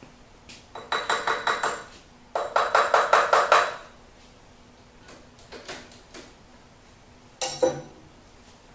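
Two bursts of rapid metallic clicking, about eight to ten strokes a second, each lasting a second or so, from work on the halftrack's engine. A single sharp metallic clank follows near the end.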